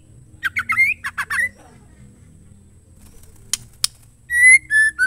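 Female white-rumped shama calling. It gives a quick burst of about eight sharp, chattering notes, then two sharp ticks about three and a half seconds in, then clear whistled notes near the end.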